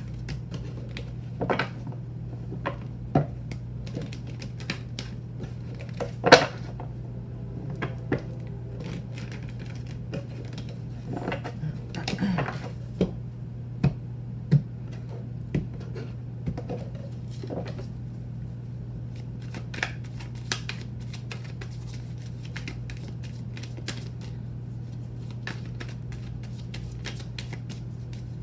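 A tarot deck being shuffled by hand: cards flicking and snapping against each other in irregular clicks, with sharper knocks as piles are set down and squared on the table. A steady low hum lies beneath.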